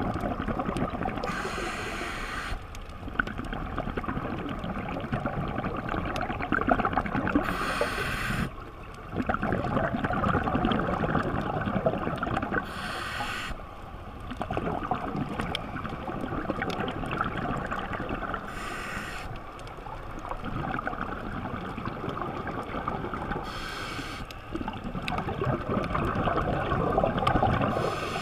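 Scuba breathing heard underwater: a burst of exhaled regulator bubbles about every five to six seconds, five in all, over a steady rush of water noise.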